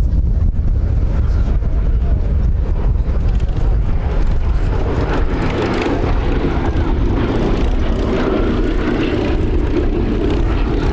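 Four Wright Cyclone radial engines of a Boeing B-17G Flying Fortress droning in flight, growing louder about halfway through, over a low wind rumble on the microphone.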